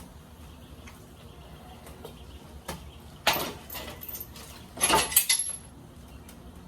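Metal clanking and rattling from handling tools and engine parts, in two short clusters about three and five seconds in.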